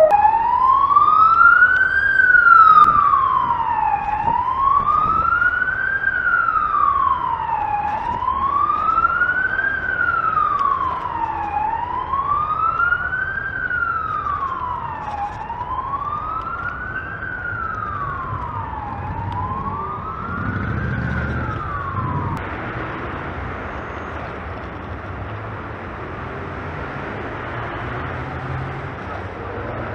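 An emergency vehicle's siren wailing, rising and falling slowly about every three and a half seconds and growing gradually fainter, until it stops about three quarters of the way through. After that only a steady street noise remains.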